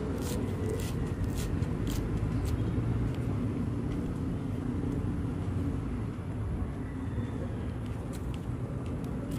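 Crisp raw lettuce crunching as it is chewed, a crunch about every half second for the first few seconds and a few more near the end, over a steady low rumble.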